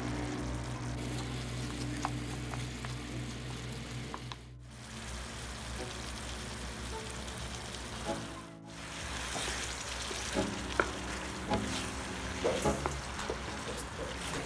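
Chicken frying and sizzling in a pan, with a steady hiss; from about two-thirds of the way in, a utensil clicks against the pan as it is stirred. Background music plays underneath.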